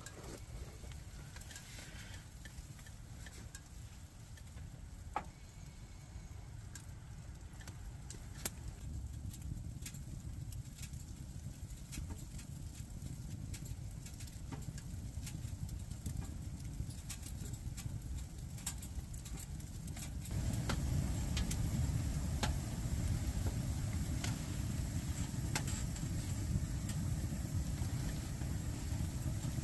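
Wood stove in a canvas hot tent burning a freshly loaded fire: scattered sharp crackles and pops over a low rumble that grows louder about twenty seconds in.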